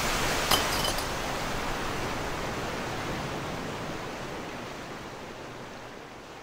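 Water gushing in a strong jet, a steady rush that fades out gradually, with a short sharp click about half a second in.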